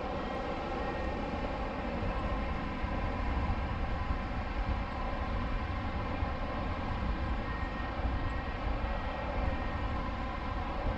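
Steady rush of airflow buffeting the microphone of a camera mounted on a hang glider's wing in flight, a deep rumble that swells and eases a little.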